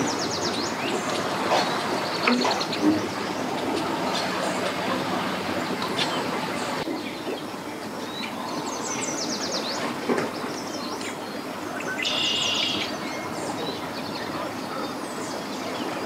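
Small birds chirping in quick runs of notes, three times, over a steady background of outdoor noise with a low hum.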